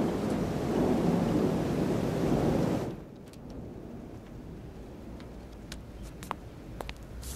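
A loud rushing, rumbling noise that cuts off abruptly about three seconds in, followed by a quiet stretch with a few faint clicks.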